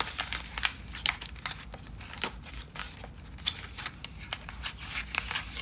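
Small toy package being opened by hand: irregular crinkling, crackling and tearing of the packaging.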